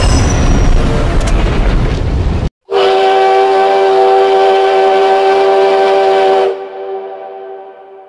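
A loud, noisy rumble of a train passing overhead, then, after a cut, a steam locomotive's chime whistle sounding a steady chord of several notes for about four seconds. It cuts off abruptly near the end and the echo fades away.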